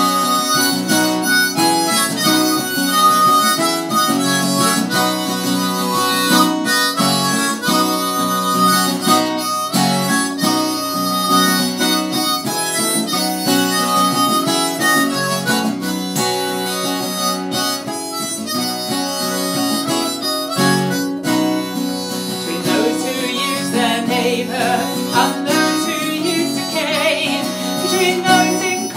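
Harmonica playing a melody over a strummed acoustic guitar, an instrumental break in a folk song.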